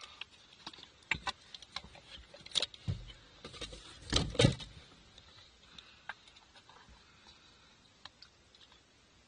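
Small clicks and knocks of eating with chopsticks against a food container, with a louder rustling bump about four seconds in, then quieter.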